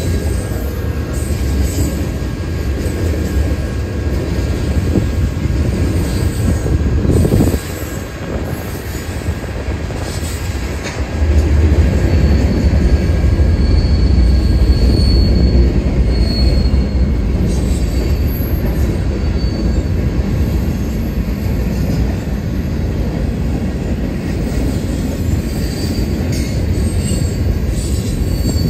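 Freight train cars rolling past: a steady rumble of wheels on the rails that grows louder about eleven seconds in, with faint high wheel squeals now and then in the middle.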